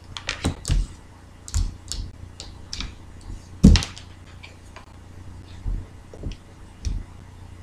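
Oracle cards being handled by hand: scattered light taps and clicks as a card is set down and the next is drawn from the deck, with one louder tap about three and a half seconds in.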